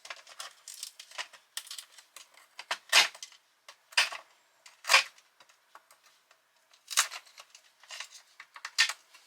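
Hard, brittle sesame seed bars being prised and snapped apart by hand, with small rustling clicks and a series of sharp cracks, the loudest coming about a second apart midway.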